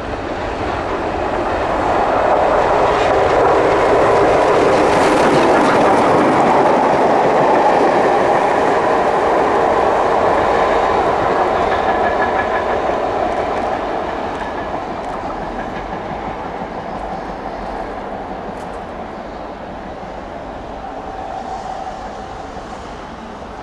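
LMS Black Five 4-6-0 steam locomotive 44871 and a coach passing and running away, wheels clattering over the track and pointwork. The sound swells over the first few seconds, is loudest for several seconds, then slowly fades as the train draws away.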